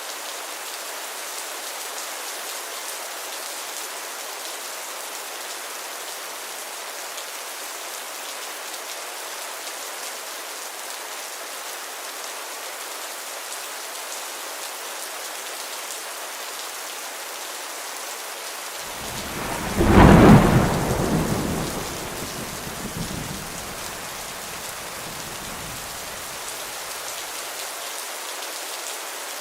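Steady heavy rain, with one thunderclap about two-thirds of the way through: it builds quickly, breaks loud, and rumbles away over several seconds with a smaller second roll.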